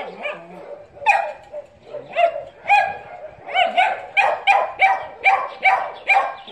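A dog barking over and over, a dozen or so barks at about two a second, after a short lull about a second in.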